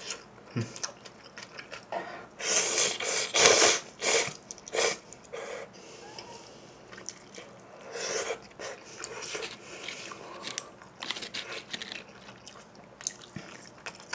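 A person slurping ramen noodles close to the microphone, loud slurps about two to five seconds in and again near the middle, with wet chewing clicks between.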